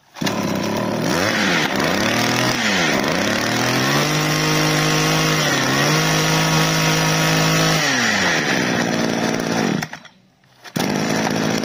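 Shingu S-2500 26cc two-stroke brush-cutter engine running, its throttle worked by hand at the carburetor. It is blipped twice, held at high revs with one brief dip, and settles to idle about eight seconds in. The sound breaks off for under a second near the end, then the idle carries on.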